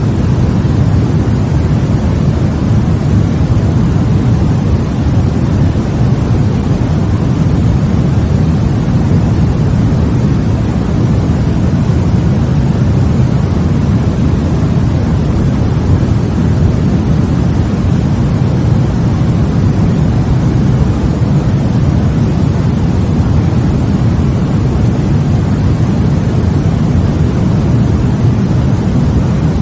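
Steady white-noise sleep sound: an even, deep rushing hiss, heaviest in the low end.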